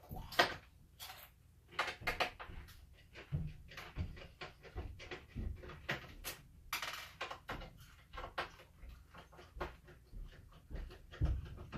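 Irregular clicks, taps and knocks of plastic parts and screws being handled while an Xbox 360 is taken apart, with a brief rustle about seven seconds in.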